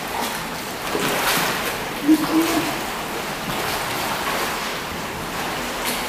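Pool water splashing and lapping as a swimmer strokes and kicks on her back.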